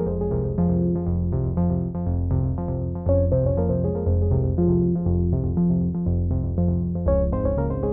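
Background music with a steady beat: keyboard-style notes over a sustained bass line.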